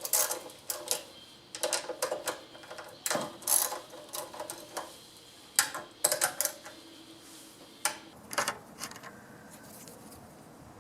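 Irregular clicks and clatter of hand tools and engine parts being handled while the engine is taken apart, some clicks coming in quick runs.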